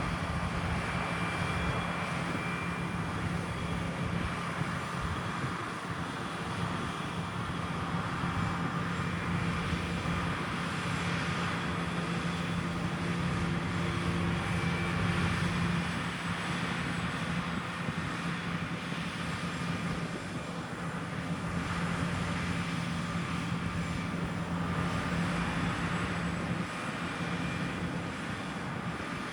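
Claas combine harvester running steadily at work in a wheat field: a constant engine drone with a steady low hum.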